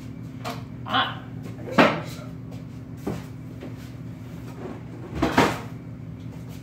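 A handful of short knocks and scrapes, about four spread over six seconds, from someone getting up from a wooden chair and rummaging in a cardboard box. A steady low hum runs under them.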